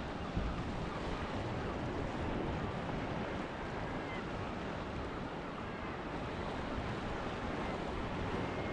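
Steady wash of open sea with wind noise on the microphone, even throughout with no distinct events.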